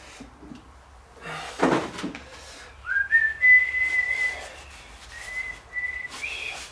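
A man whistling a few long, near-steady notes that start about three seconds in with a short rising slide, break briefly, and end on a higher note. A short, loud handling noise comes about a second and a half in.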